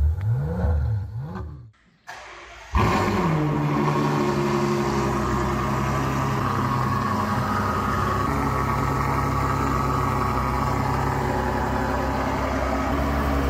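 An engine revs up and down twice and fades away. About three seconds in, the Ferrari GTC4Lusso's engine starts with a sudden loud flare whose pitch drops and settles into a steady idle.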